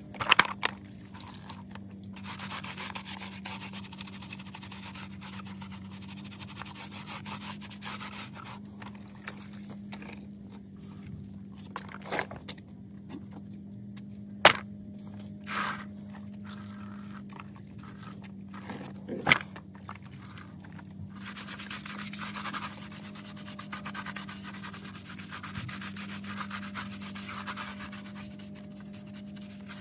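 Stiff hand brush scrubbing soapy rubber car floor mats from a Toyota Sienna in repeated stretches of scratchy rubbing, with a few sharp knocks as the mats are lifted and stacked. A steady low hum runs underneath.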